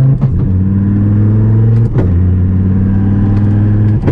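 Twin-turbo Dodge Viper V10 pulling gently through the gears on its air-shifted sequential gearbox, heard from inside the cabin. The engine note climbs slowly, then drops about every two seconds at a quick upshift, each shift marked by a short click.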